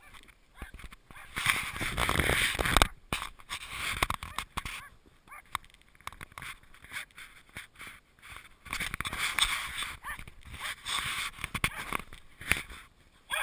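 Wind buffeting and movement noise on a small action camera's microphone as it moves over snow, an uneven rushing with scattered knocks, loudest in two spells: from about one to three seconds in and from about nine to twelve seconds.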